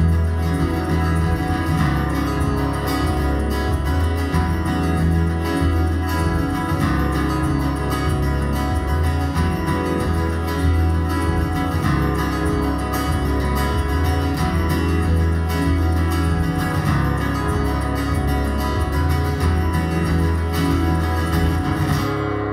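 Acoustic guitar played fast and hard, layered over looped guitar parts with a strong steady low drone. Near the end the picking stops abruptly and the sustained low tones ring on.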